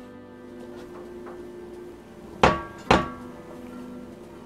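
Cast iron skillet clanking twice against a glass-top electric stove, about two and a half seconds in and again half a second later. Each knock is sharp and leaves a brief metallic ring.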